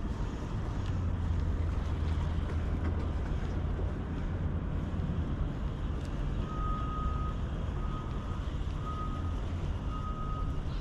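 A vehicle's reversing alarm beeping about once a second, starting about halfway through, over a steady low rumble.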